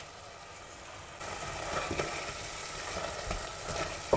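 Pork and tomato goulash base sizzling in a stainless steel pot as it is stirred with a silicone spatula, with a few soft scrapes. The sizzle gets louder about a second in.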